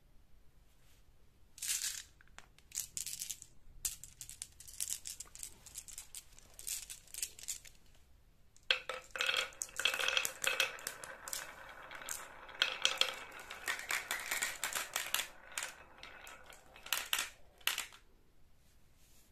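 Marbles clicking as they are handled at the top of a wooden zigzag marble track, with scattered clicks at first. From about nine seconds in, a long dense clatter as they roll down the grooved wood, through a ribbed plastic pop tube and into a plastic toy dump truck's bed, dying away near the end.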